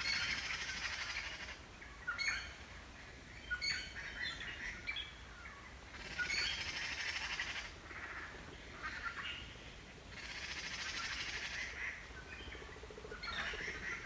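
Giant panda chewing bamboo, crackly crunching that comes in bursts of a second or two, several times over. Short high chirps fall in the gaps between bursts.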